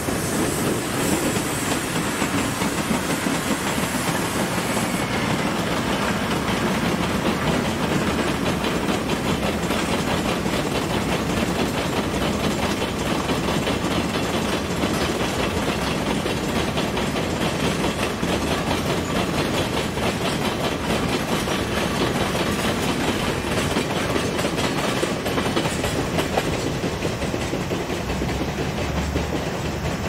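Long freight train of hopper wagons rolling past, with a steady rumble and continuous clickety-clack of wheels over the rail joints.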